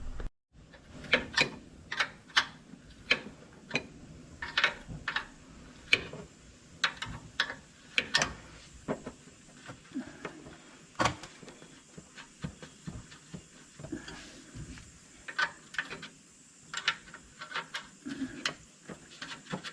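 Hand tools working on a front brake assembly, making irregular sharp metallic clicks and clinks, about one or two a second, as the brake line fitting is undone.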